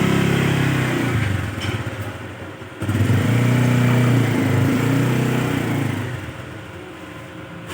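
Small engine running, heard in two swells: loud for about the first second and a half, dying away, then rising again for about three seconds and fading out.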